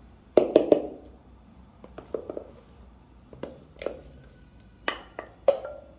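Wooden spoon knocking and scraping against a plastic measuring jug and a glass mixing bowl while scraping out foamy yeast mixture: three quick knocks about half a second in, scattered lighter taps, and a few louder knocks near the end.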